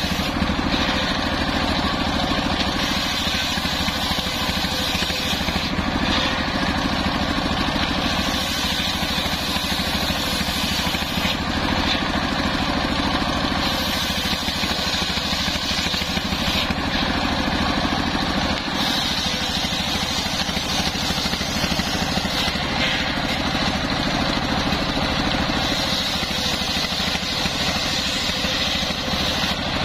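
Stationary diesel engine running steadily, belt-driving a large circular saw blade that rips waru (sea hibiscus) wood into boards. The blade's hissing cut swells as each board is pushed through and drops back between cuts, about every five or six seconds.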